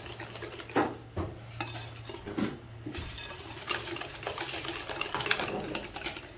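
Wire whisk beating thick chocolate cake batter in a glass bowl, with irregular clinks and scrapes of the wires against the glass.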